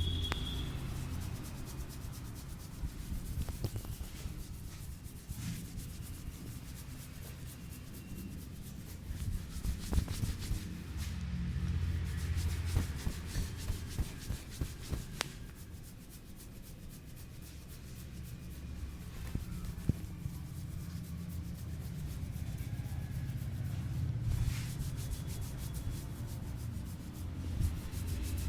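Hands rubbing and kneading an oiled scalp and hair close to the microphone, a continuous rustling friction broken by scattered light taps and slaps.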